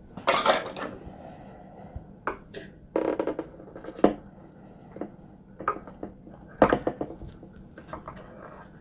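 Handling noise: scattered knocks, taps and scrapes of hard plastic as the drone remote controller and its add-on antenna panels are held and moved.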